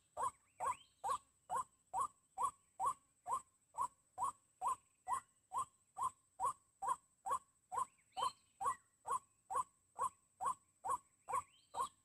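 White-breasted waterhen call played as a bird lure, a short falling 'wak' note repeated steadily about twice a second.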